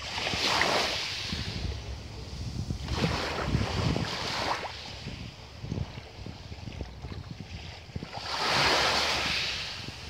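Small sea waves washing onto a pebble beach, three hissing washes as water runs up over the stones: near the start, about three seconds in, and a louder one about eight seconds in. A steady low rumble lies underneath.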